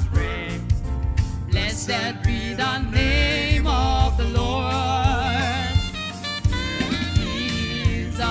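Gospel hymn music with a drum kit keeping a steady beat under a lead melody sung or played with wide vibrato.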